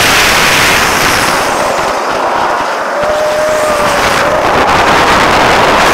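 Heavy wind buffeting the microphone of a camera riding in a roller coaster's front seat as the train climbs the lift hill and reaches the crest. The rush eases briefly a little past halfway and builds again as the train tips toward the drop. A faint held tone sounds about three seconds in.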